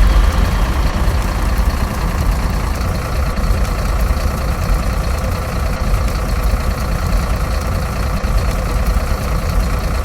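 A school bell's ring lingers faintly as a few steady tones over a loud, steady low rumble.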